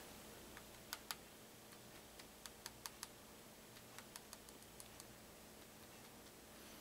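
Faint, irregular small clicks and ticks, about a dozen, the two loudest about a second in, from shotshell reloading parts being handled while buffer is added over .32 caliber buckshot pellets in the hull.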